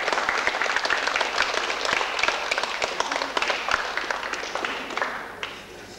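A small audience applauding, the clapping dying away about five seconds in.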